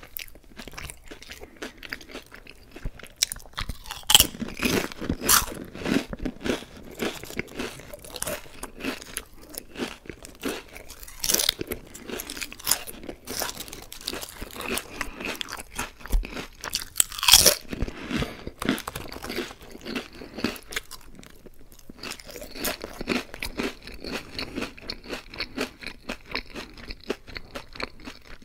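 Close-miked crunching and chewing of Lay's Classic potato chips, a dense run of crisp crackling bites and chews. The sharpest, loudest crunches come about 4 and 17 seconds in, and the chewing turns softer and sparser over the last several seconds.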